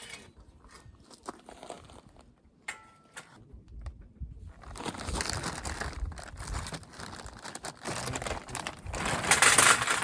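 Crinkling and rustling of material being handled, with a few light clicks at first; the rustling grows louder from about halfway through and is loudest near the end.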